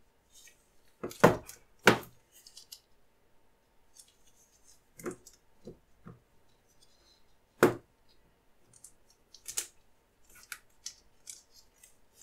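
Sticks of plasticine being picked up and set down on a paper-covered table: a handful of dull knocks, three of them loud, with the light crinkle of disposable gloves rubbing between them.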